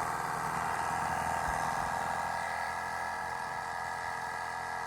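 Corded reciprocating saw (Sawzall) with a thick pruning blade, running steadily while it is pushed into the wood of a fallen tree.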